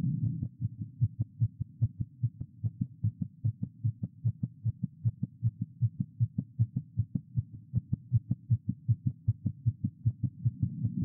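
A woman's heart beating very fast, heard through a doctor's stethoscope: a quick, even run of low thuds, with a brief low rumble near the start and again near the end.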